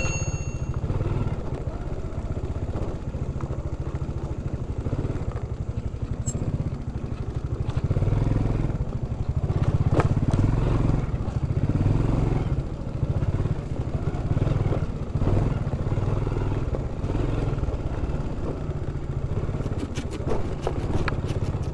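Small motorcycle engine running under way on a rough dirt track, picking up for a few seconds around the middle, with an occasional sharp knock from the bumps.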